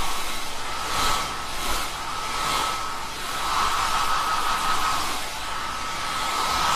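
Hand-held hair dryer blowing steadily with a high whine, its loudness rising and falling.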